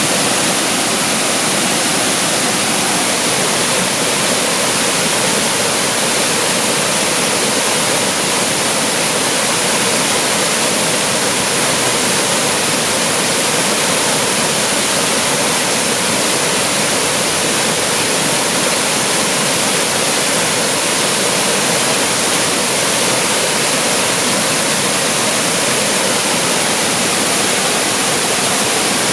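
Waterfall pouring, a steady loud rush of falling water with no breaks or changes.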